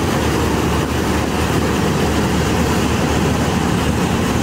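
Channy 930 combine harvester running steadily while harvesting paddy: a low diesel engine drone under a broad, even mechanical noise from the working machine.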